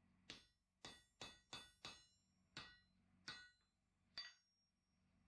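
Blacksmith's hammer striking a hand-held tool held on red-hot steel on the anvil: eight sharp metallic blows at an uneven pace, each with a short ring. The last blow rings on briefly with a high note.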